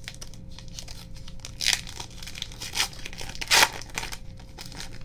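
Foil wrapper of a baseball card pack crinkling and being torn open by hand, in several short rips, the loudest about three and a half seconds in.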